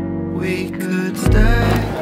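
Background music with sustained guitar chords fades as the chatter of several voices in a room comes in about half a second in. A short low rumble follows a little after halfway.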